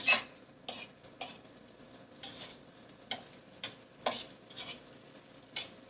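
Metal utensil scraping and clinking against a metal frying pan as chicken and vegetables are stirred, in about nine short, irregularly spaced strokes.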